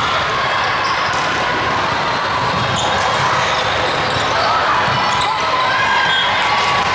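Steady reverberant din of a large hall with volleyball games in play: volleyballs being struck and bouncing on the court floor, over voices of players and spectators calling out.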